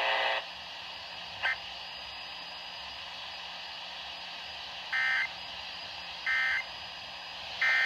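Emergency Alert System end-of-message signal: three short, harsh digital data squawks about a second and a half apart, closing the alert. They sit over a steady radio hiss.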